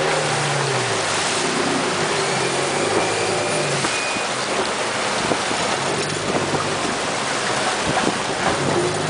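Mercury outboard motor running under way through the surf, its engine note rising and falling over the first few seconds, under a steady hiss of rushing water and spray.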